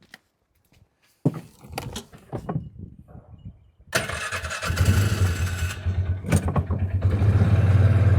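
Knocks and clatter, then a vehicle engine starts about four seconds in and settles into a steady, loud running idle.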